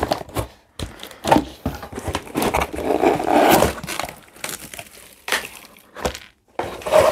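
Cardboard box opened by hand: flaps pulled apart and cardboard scraping and rustling, with scattered knocks and a longer rustle in the middle as the box comes open.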